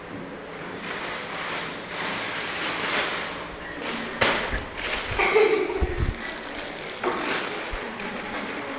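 Dogs scuffling and jumping about on a tile floor: rustling and a few thumps and knocks, loudest in the middle, with one short cry about five seconds in.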